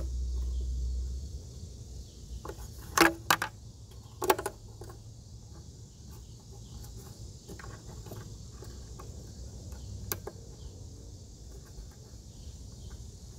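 Sharp clicks and knocks of the plastic tail lamp housing and its bulb sockets and wiring being handled, the loudest about three and four seconds in, with a softer one near the end. Under them runs a steady high buzz of insects, and a low rumble stops about a second in.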